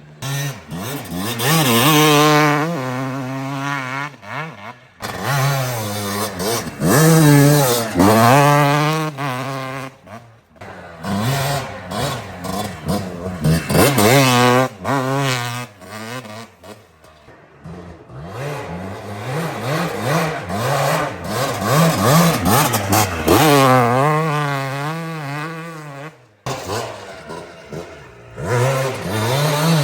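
Dirt bike engine ridden on a track, revving up and dropping back again and again, with a few abrupt breaks in the sound.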